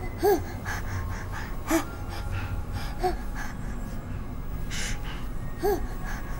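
A person's short voiced gasps, four of them, with breathy rustling noises between.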